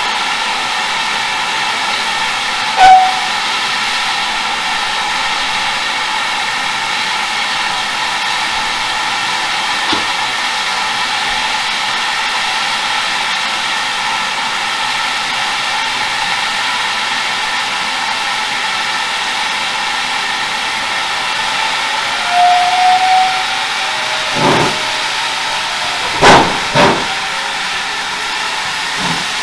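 Steam locomotive letting off steam in a steady, loud hiss. Short high tones sound about three seconds in and again around twenty-two seconds, and a few sharp knocks come near the end.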